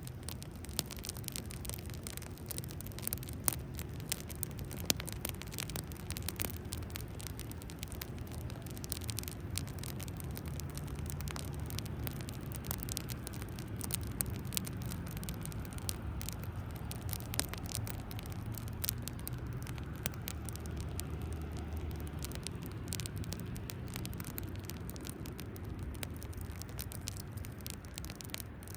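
Wood fire crackling, with many small irregular pops and snaps, a few sharper than the rest, over a steady low rumble.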